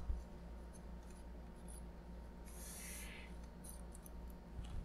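Faint handling noise as the graphics card is worked on for its teardown: a brief scraping rustle about two and a half seconds in and a few light clicks, over a steady low electrical hum.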